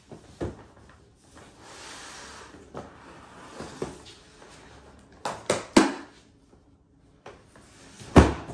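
Cardboard packaging being handled: a long printed sleeve is slid up off a cardboard inner box, with a stretch of rubbing scrape early on and several sharp cardboard knocks, three close together around the middle and the loudest near the end.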